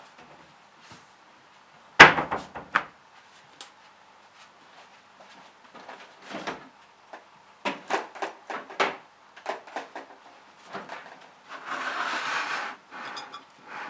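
Kitchen handling sounds: a sharp knock about two seconds in, a run of light clatters and clicks, then a short scraping rustle near the end as a hand works a spoon through flour in a glass mixing bowl.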